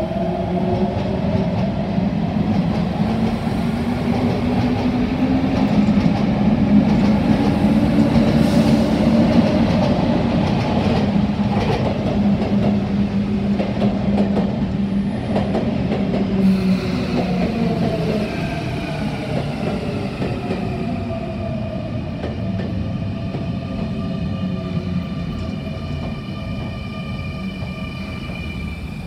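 Sotetsu electric commuter trains running along an elevated station track, with the wheels and running gear rumbling as a train passes close by. From a little past halfway, the motors give a rising electronic whine of several tones as a train pulls away, accelerating.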